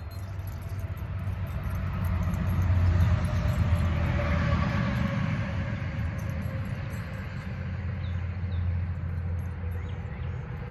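A motor vehicle passing by. Its low rumble swells to a peak about three seconds in, then slowly fades away.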